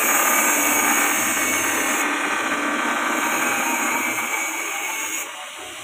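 Electric-motor-driven JG 25 chopper (chaff and feed cutter) running with a steady mechanical whine, becoming quieter about five seconds in.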